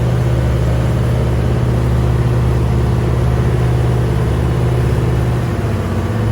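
Fishing boat's engine running steadily with a deep hum, dropping in pitch near the end.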